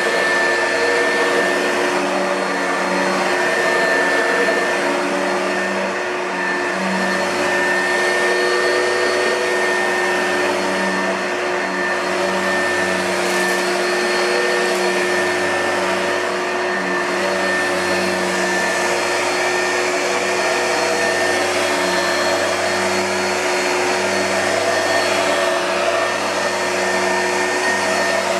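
2005 Oreck XL2 upright vacuum cleaner running steadily, a motor whine at a constant pitch over the rush of air.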